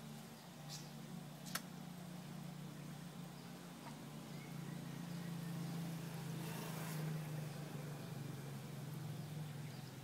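A steady low mechanical hum that swells a little around the middle, with two short, sharp high squeaks or clicks in the first two seconds and a brief hiss a few seconds later.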